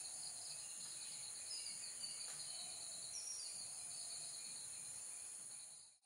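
Steady chorus of insects, a continuous high buzz, with a few brief bird chirps over it. It fades out near the end.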